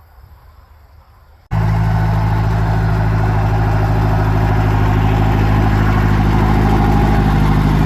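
An engine running steadily at one speed, cutting in abruptly about a second and a half in after a quiet stretch.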